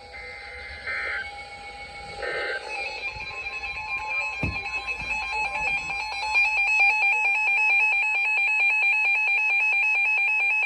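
NOAA Weather Radio alert signalling: two short buzzy SAME digital data bursts in the first two and a half seconds, then an electronic alert tone that warbles rapidly between pitches, grows louder and holds steady, announcing a new warning.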